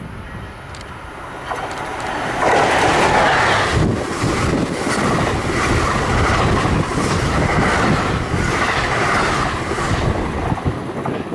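New Jersey Transit electric commuter train rolling past, growing loud about two seconds in, its wheels clattering over the rails, then easing off near the end.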